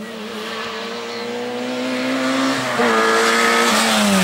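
Peugeot 106 rally car's four-cylinder engine at full speed, approaching and getting louder, its note climbing steadily. About two-thirds of the way in the note breaks briefly, then comes back louder as the car draws close.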